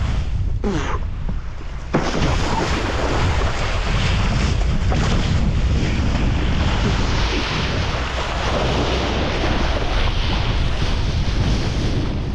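Wind buffeting an action camera's microphone while a kiteboard rides over choppy sea, with water rushing and spraying off the board. It drops quieter for about a second and a half just after the start, then comes back abruptly.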